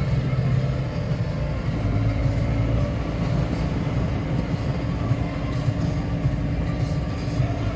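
Engine of a snow-ploughing vehicle running steadily at constant speed, a low drone with some rattle.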